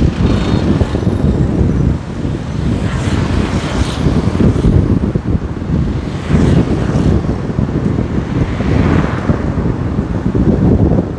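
Road traffic noise on a city street: a steady low rumble of engines and tyres, swelling as vehicles pass about three, six and nine seconds in.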